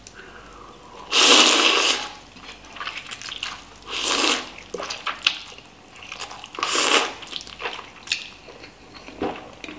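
Instant noodles being slurped off chopsticks, three long loud slurps about one, four and seven seconds in, with softer wet mouth clicks between.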